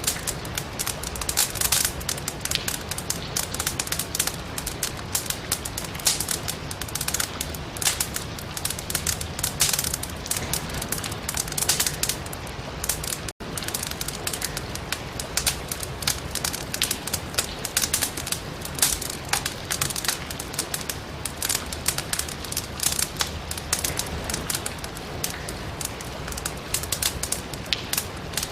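Firewood burning in a fireplace, crackling with frequent sharp pops over a steady rush of rain outside the window. The sound cuts out for an instant about halfway through.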